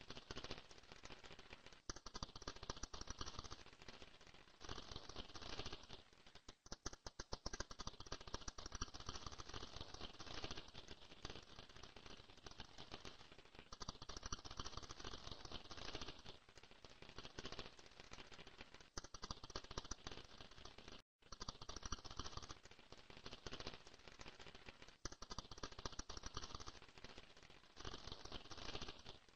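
Dense, rapid clicking and rattling that swells in repeated bursts of one to two seconds with short lulls between them, cutting out briefly about 21 seconds in.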